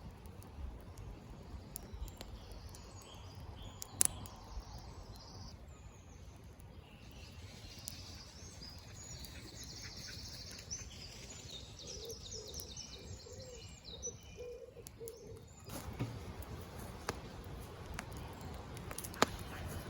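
Woodland birds singing: high chirping phrases through the middle, with a run of short, lower repeated notes near the same time, over a low outdoor rumble. A sharp crack about four seconds in and another near the end.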